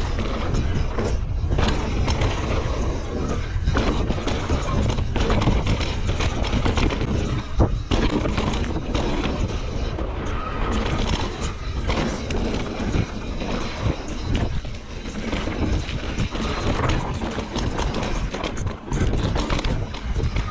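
Mountain bike riding over a dirt trail: steady tyre noise with frequent knocks and rattles from the bike, and wind rumbling on the microphone.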